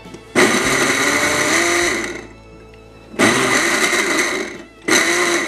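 Countertop blender running in three pulses with short pauses between, churning a chunky mix of salmon with bones, clam chowder and wine into a liquid shake.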